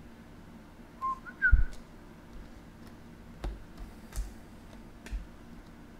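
Trading cards being shuffled and handled: soft taps, clicks and knocks, with a louder bump about one and a half seconds in. Just before that bump come two short high whistled notes, the second higher than the first.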